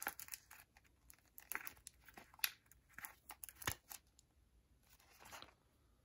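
Faint handling noise from a lighter's plastic-windowed display box being turned over in the hand: a run of soft crinkles and small clicks, with two sharper clicks about two and a half and three and a half seconds in, and a brief rustle near the end.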